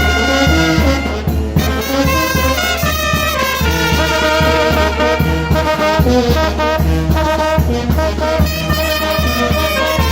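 Mexican village brass band (banda de viento) playing: trumpets and trombones carry the melody in sustained notes over a steady low beat.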